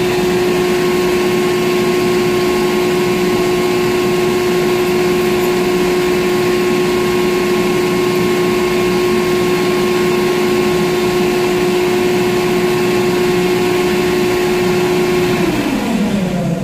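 Ship's deck crane machinery running with a steady hum from inside the operator's cab, then winding down with a falling pitch near the end as it cuts out. The operator reports that the crane dies whenever the floating block is worked.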